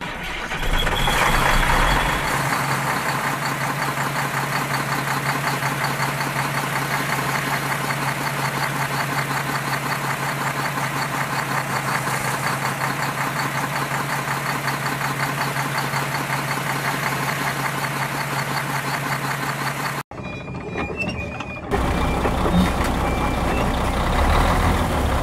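A steady engine-like running drone with a low hum and a fine, fast rattle. It cuts off sharply about twenty seconds in, and after a short quieter gap a deeper engine sound takes over.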